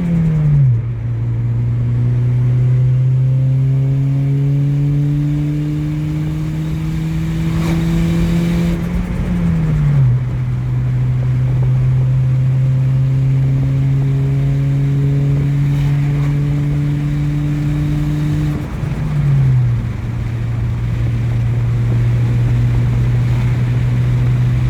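Turbocharged K20 Honda Civic's 2.0-litre four-cylinder pulling slowly up through the revs. The pitch drops sharply three times, near the start, about nine seconds in and about nineteen seconds in, as it shifts gear. At each shift the HKS SSQV blow-off valve vents as the throttle closes.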